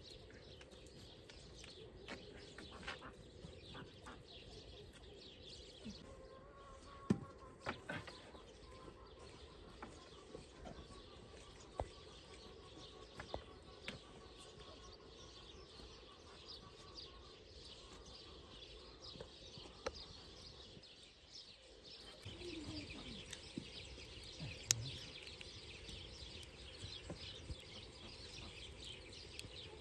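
Birds chirping faintly against a quiet outdoor background, with scattered sharp clicks and knocks of wooden branches being bent and tied into a dome frame.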